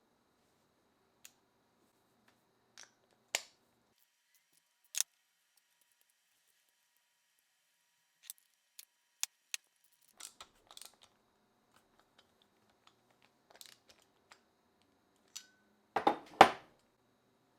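Scattered sharp clicks and light knocks of small parts and tools being handled during a fan restoration, with a louder double clatter near the end.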